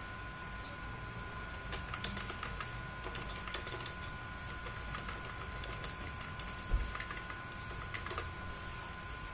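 Typing on a computer keyboard: a run of irregular key clicks. There is a low thump about two-thirds of the way through, under a faint steady high tone.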